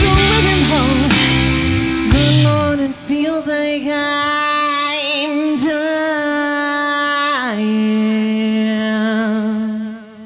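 Rock band with electric guitar, bass, drums and violin playing live with a female singer. After about three seconds the full band drops back under long held notes with vibrato, and the sound falls away just before the end.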